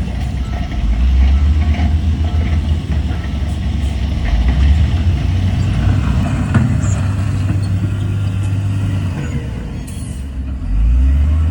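Heavy diesel engine of earthmoving equipment running, a deep steady rumble that eases about nine seconds in and picks up again near the end, with a few faint knocks.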